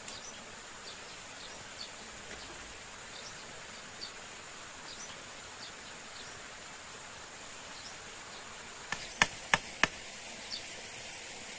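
Jungle ambience: a steady high insect drone over an even hiss, with scattered short chirps. Near the end comes a quick series of four sharp knocks, the loudest sounds here.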